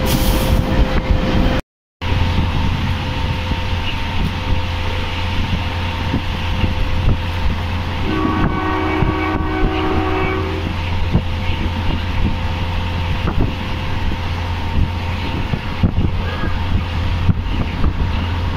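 A DEMU diesel multiple unit running at speed, heard from inside: a steady low engine hum under continuous rail and wind noise. A train horn sounds for about two and a half seconds near the middle. The audio drops out for a moment about two seconds in.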